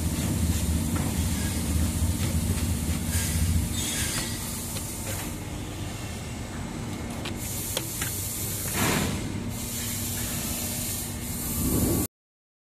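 Automatic double-sided labeling machine and its conveyor running: a steady noisy rush with a low motor hum that drops away about four seconds in, and a few light clicks. The sound cuts off abruptly near the end.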